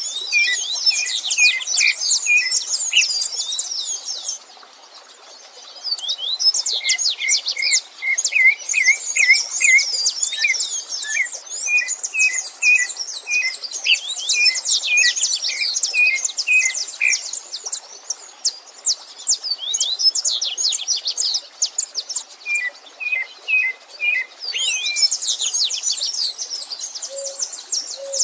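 Several songbirds singing together: dense, rapid high-pitched warbling phrases, with another bird repeating short, lower chirping notes in series. The song breaks off briefly about four seconds in, then resumes.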